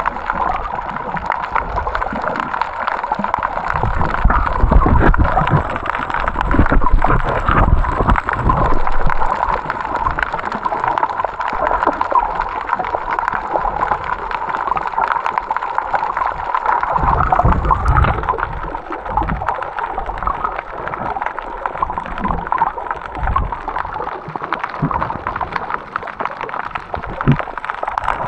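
Water sloshing and gurgling close to the microphone, coming in irregular surges.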